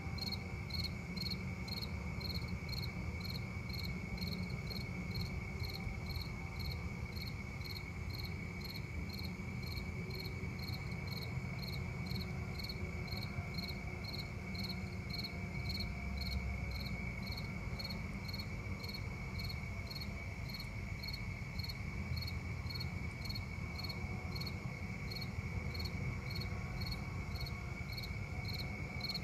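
Night insects calling: a cricket chirps evenly at about two chirps a second over a continuous high trill from another insect, with a low background rumble.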